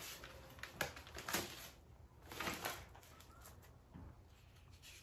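A few faint, short rustles and taps from hands handling a paper instruction sheet and the parts of a wooden garden bed kit.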